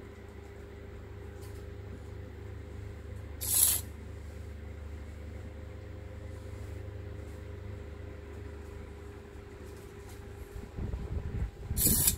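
Small hobby servo motor whirring briefly as it swings the door-latch arm, once about three and a half seconds in and again near the end, over a steady low hum.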